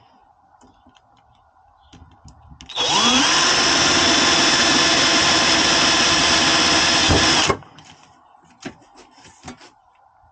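Power drill with a 3 mm bit boring a hole through a curtain rail. The motor spins up with a rising whine about three seconds in, runs steadily for about five seconds, then stops suddenly.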